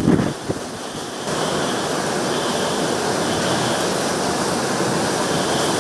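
Hurricane wind and heavy rain as a steady rushing noise, with wind buffeting the microphone at the very start before it settles about a second in.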